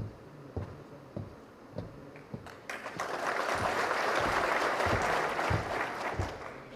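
Audience applauding for about three and a half seconds, starting about three seconds in. Soft low thuds at a steady pace run underneath.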